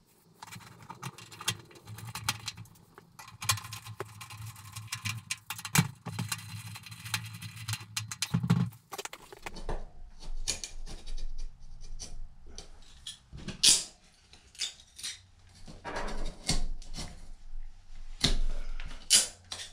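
Cordless power driver whirring with clicking and rattling as it drives screws up into the underside of a wall-hung propane heater's sheet-metal cabinet; it stops about eight and a half seconds in. Then come scattered knocks, clanks and clicks from handling the metal heater and its mounting.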